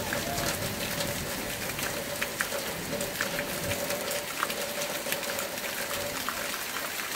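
Steady rain falling on a rubber plantation, an even hiss with many close individual raindrops ticking sharply. A thin steady tone sits under the rain and stops about six seconds in.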